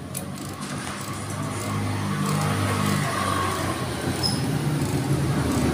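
A motor vehicle engine running and growing steadily louder, with a few faint clicks right at the start.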